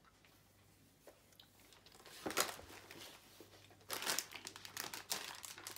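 Plastic candy bag crinkling and rustling as a hand reaches into it. It comes in short bursts from about two seconds in, busier over the last two seconds.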